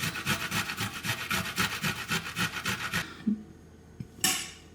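Garlic being grated on a hand grater: quick, even scraping strokes, about six a second, that stop about three seconds in. A short knock follows near the end.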